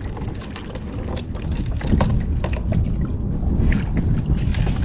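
Double-bladed paddle strokes dipping and splashing in the water beside a kayak, with strong wind rumbling on the microphone.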